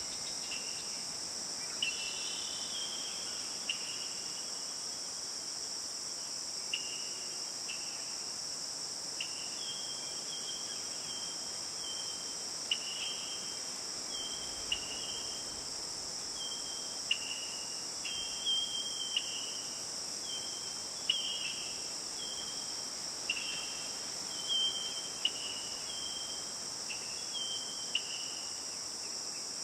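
Steady, high-pitched insect chorus, with short chirps repeating irregularly about once a second over it.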